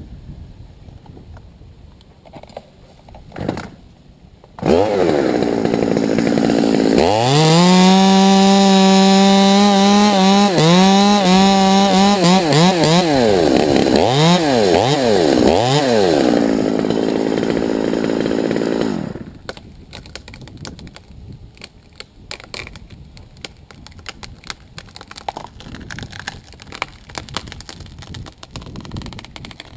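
Chainsaw cutting through a tree limb: it comes in about five seconds in, goes up to a high, steady full-throttle pitch while sawing, is revved up and down several times, and stops about two-thirds of the way through. Light clicks and rustling of climbing gear follow.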